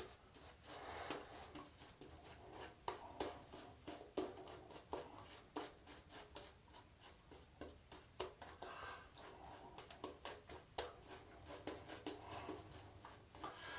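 Semogue 830 boar-bristle shaving brush painting lather onto a stubbled face: faint, irregular scratchy swishes and small clicks of bristles dragging over whiskers.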